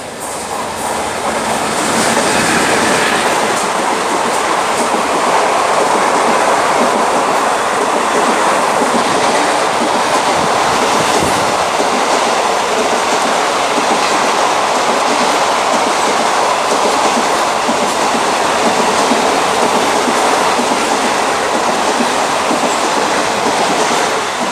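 Express passenger train rushing past at speed: a steady, loud roar of coach wheels on the rails with a clickety-clack of wheels over the rail joints, building over the first two seconds and then holding.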